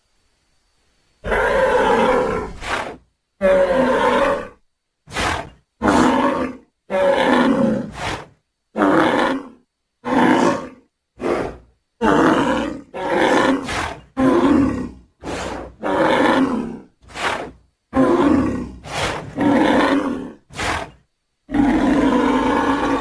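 Bull bellows and grunts used as a creature's voice: a long run of about twenty calls, some a second or more and some short, with brief gaps between them, beginning about a second in.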